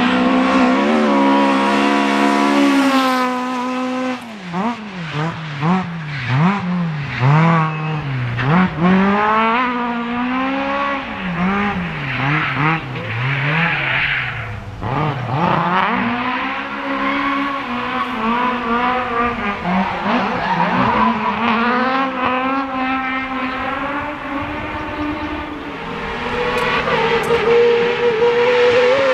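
Rally car engine driven hard on a tarmac stage: its pitch climbs and drops sharply again and again as it revs, shifts gears and lifts for corners. Tyres squeal about halfway through, and the engine pulls up steadily under acceleration near the end.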